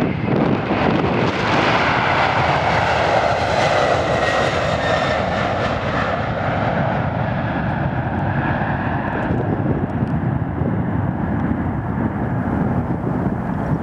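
Boeing 747-400 freighter's four jet engines at takeoff thrust as the aircraft lifts off and climbs away: a loud roar that swells a second or two in, with a faint falling whine. After about nine seconds the hiss thins out and a low rumble carries on.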